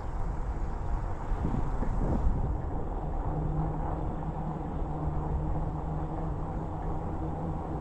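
Riding noise from a fat-tire e-bike: low wind rumble on the microphone with rolling road noise, and a steady low hum that comes in about three seconds in.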